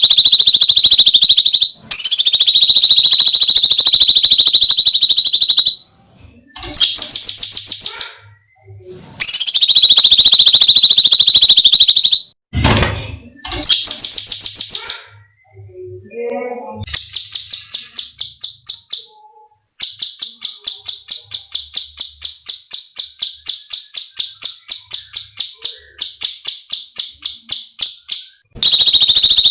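Cucak cungkok giving long, harsh screeching calls of several seconds each, then a long run of rapid rattling notes, about five a second, in the last third. A brief thump sounds about midway.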